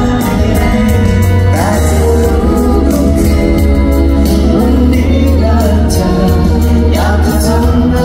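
Live pop concert music: a male singer's voice over a full band, with a steady drum beat and strong bass, heard from the audience in a large arena.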